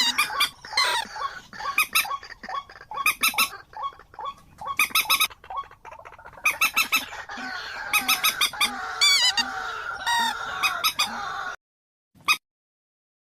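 Bird calls: many short, sharp calls in quick succession over a steady chorus of other birds, one with a wavering whistle about nine seconds in. The sound cuts off abruptly near the end, with one short call after the break.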